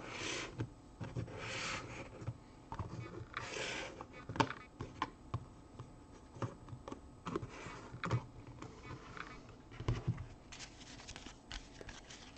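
Trading cards in clear plastic holders being handled and set down on a table: irregular light clicks and taps of plastic, with a few short rustles of cards sliding, near the start, about a second and a half in and about three and a half seconds in.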